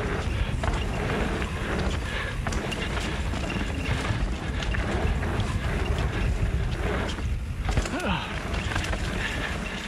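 Mountain bike riding fast down a dirt trail: wind rushing over the microphone, tyres rolling on dirt, and the bike rattling and knocking over bumps.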